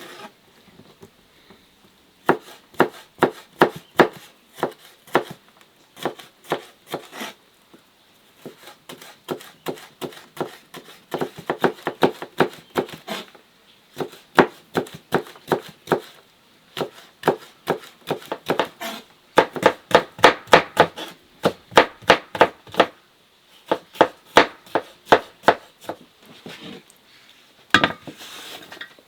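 Knife chopping vegetables on a cutting board, in runs of quick, sharp strokes about three a second, with short pauses between the runs.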